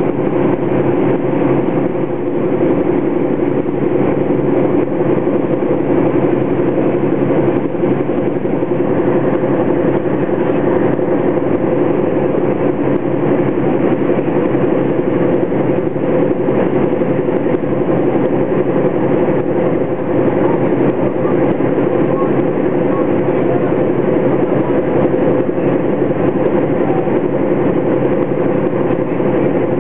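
Fishing boat's engine running steadily while under way, a constant unchanging drone.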